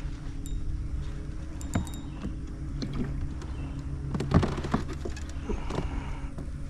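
Fishing reel being wound in while a hooked bass is fought from a pedal kayak. Scattered sharp clicks and knocks sound over a steady low hum, the strongest about four and a half seconds in.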